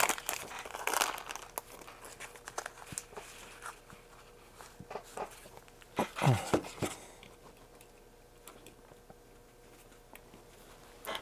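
Plastic parts bags crinkling and small screws clicking as they are handled, with scattered light taps; a louder rustle about six seconds in, then quieter.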